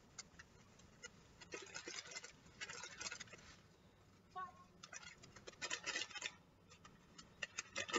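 Paper pouch of pistachio pudding mix crinkling and rustling as the powder is poured and shaken out into a bowl, in three bursts.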